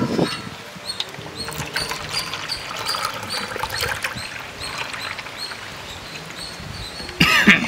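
Thick grape juice poured from a jug into plastic cups, a thin stream trickling and splashing into the liquid, with birds chirping in the background. A brief louder noise comes near the end.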